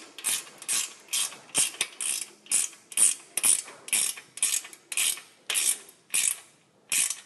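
Socket ratchet clicking in short, even bursts, about two a second, as a 10 mm nut is tightened firmly. A pause near the end is followed by one last burst.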